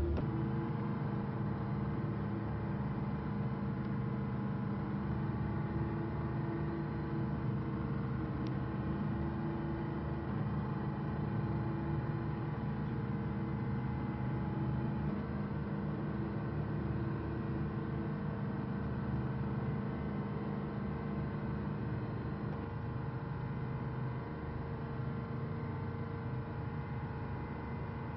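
Boat engine running steadily: a constant drone with a fast low throb and several held tones, over a hiss of wind and sea. A couple of the tones drop away about two-thirds of the way through.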